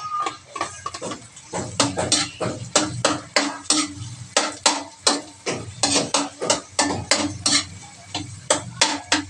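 Metal spatula striking and scraping a stainless steel wok while stirring, a quick steady run of clinks about three a second.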